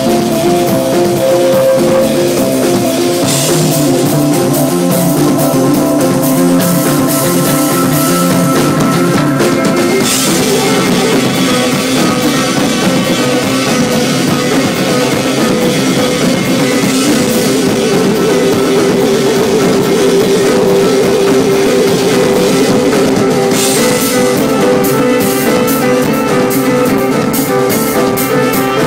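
Live rock band playing loudly, with a drum kit, electric guitar and keyboard.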